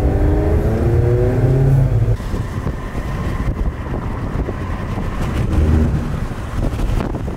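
Car engine rising in pitch as the car accelerates for about two seconds, then giving way abruptly to steady road noise while driving at speed.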